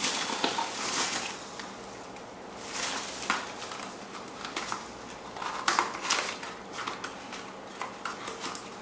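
Rustling and crinkling of packaging as items are pulled out of a shipping box, with a few sharp knocks of small items being handled.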